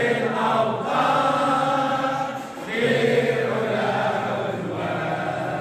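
A group of many voices chanting together in unison, in long held phrases with a brief break in the middle.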